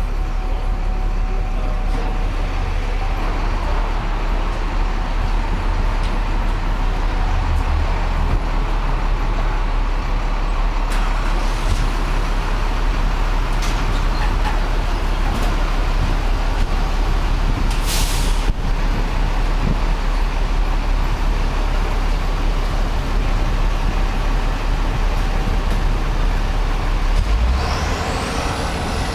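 Heavy diesel fire apparatus in slow city traffic, running with a steady low rumble. An air brake hisses sharply and briefly about two-thirds of the way through, and a rising whine comes in near the end.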